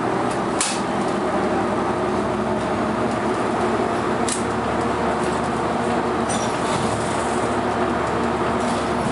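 Inside a city bus cruising at steady speed: the engine's steady drone and road and tyre noise, with a few brief clicks or rattles from the cabin.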